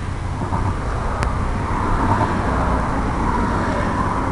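Steady low outdoor rumble, with a single sharp click a little over a second in.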